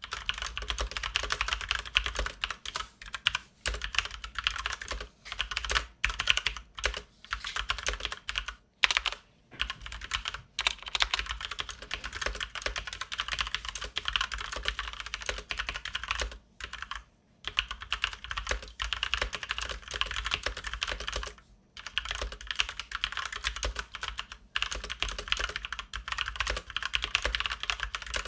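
Fast, continuous typing on a Genesis RX85 mechanical keyboard with Kailh Brown tactile switches and thick keycaps, clattering keystrokes with a few brief pauses.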